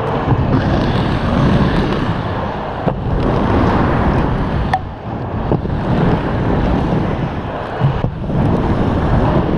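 Inline skate wheels rolling on a wooden vert ramp, with wind rushing over the microphone of a camera carried by a skater riding the ramp. The rush swells and drops several times as the riders pump through the transitions, with a few sharp clicks.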